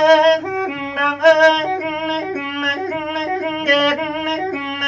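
A man singing a Thai lae-style verse in long drawn-out notes, the pitch stepping up and down between held tones with no clear words.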